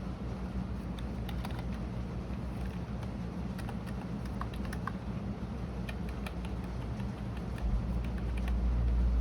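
Computer keyboard typing: scattered key clicks over a steady low hum. A low rumble swells in the last second and a half and becomes the loudest sound.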